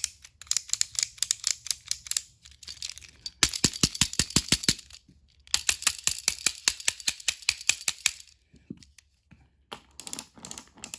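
Rapid plastic clicking and rattling from a battery-powered Thomas toy engine being handled and tested, in four bursts of one to two seconds each.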